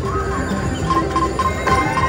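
Video slot machine's game music with electronic sound effects: four short, evenly spaced beeps at one pitch in the second half, then a rising tone near the end.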